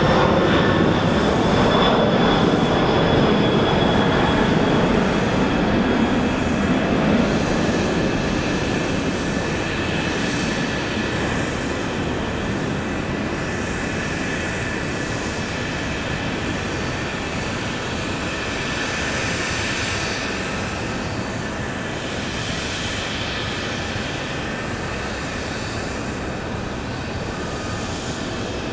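Boeing 747-400 Dreamlifter's four jet engines at takeoff power: a steady rushing engine noise with a faint high whine, fading gradually as the aircraft climbs away.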